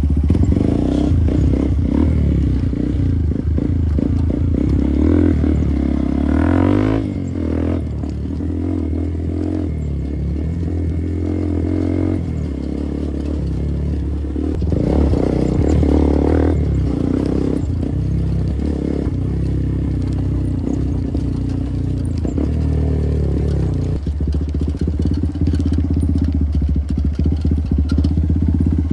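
Motorcycle engine running while riding, the revs climbing and dropping a couple of times, with some rattling near the end.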